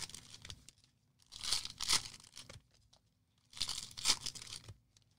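Trading card packaging torn open and crinkled by hand in three short bursts of tearing and crackling.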